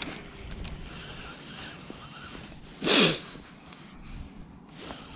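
A person's short, sharp sniff through the nose about three seconds in, the loudest sound, over steady wind noise.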